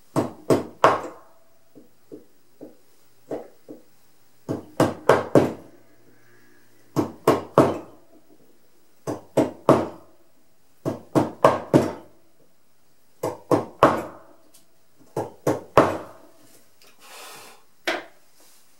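Carving chisel being tapped into hard keyaki (zelkova) wood: sharp wooden knocks in quick groups of three or four, a group about every two seconds, as the shinogi ridge is cut.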